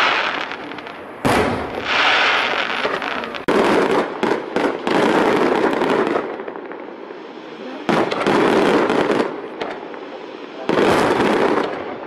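Aerial firework shells bursting one after another, a sudden bang every two to three seconds, each trailing off over a second or two, with a quick run of smaller bangs about four seconds in.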